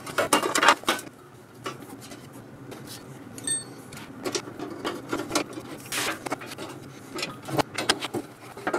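Metal shroud being set onto a portable air compressor and its bolts turned with a ratchet wrench: irregular knocks, clatter and clicks, densest a little past halfway, with a brief squeak about three and a half seconds in.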